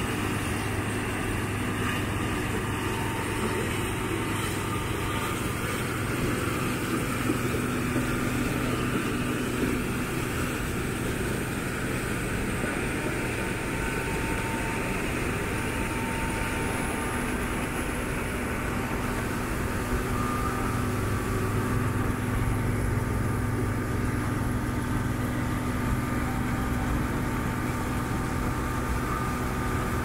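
Massey Ferguson 850 combine harvesting corn: a steady, even drone of the engine and threshing machinery running under load.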